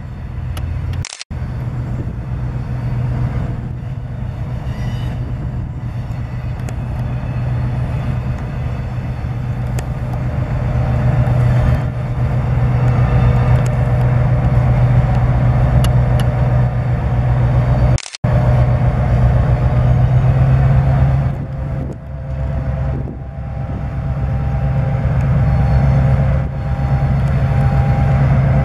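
Diesel switcher locomotive's engine running with a steady low hum as it pulls a cut of gondolas slowly toward the listener, growing louder for the first dozen seconds. The sound breaks off briefly twice, about a second in and again midway.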